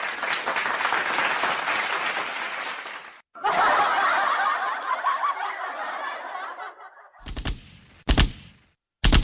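Canned audience laughter, two separate laugh clips back to back with a sudden cut about three seconds in. Three sharp bangs follow in the last two seconds.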